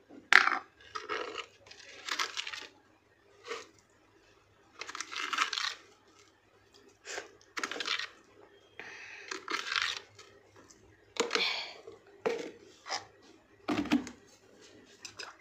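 Intermittent short rustling, scraping and clinking noises, about a dozen in all with quiet gaps between them: hands at work around an aluminium pressure cooker of soaked kidney beans as salt is added.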